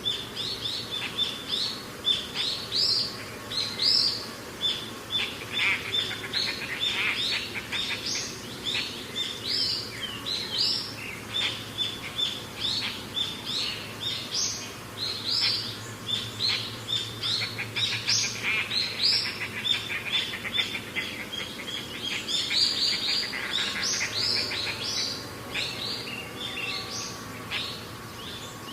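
Birdsong: small birds chirping with short, quickly repeated notes that overlap densely throughout.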